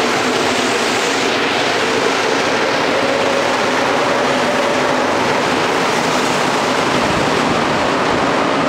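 Montreal Metro MR-63 rubber-tyred train pulling out of the station into the tunnel: a loud, steady rush of running noise with a faint humming tone under it.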